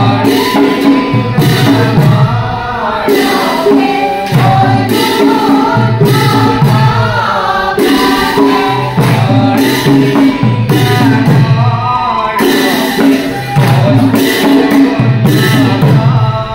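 Group singing of Dihanam, Assamese devotional chanting, with many voices together, kept in time by hand claps.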